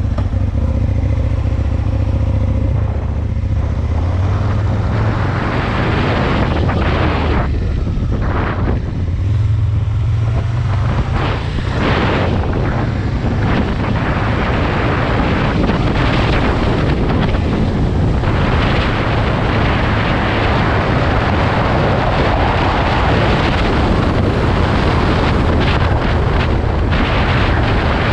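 Aprilia Tuono 1000's V-twin engine running as the motorcycle is ridden, with wind noise over the microphone.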